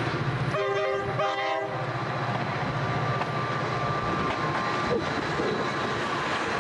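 Amtrak locomotive pulling out of the station, sounding two short horn blasts back to back about a second in, over the steady low hum of the locomotive running.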